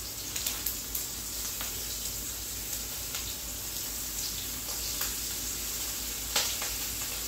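Food sizzling in a hot frying pan on the stove: a steady hiss, with a few light clicks and taps, the sharpest near the end.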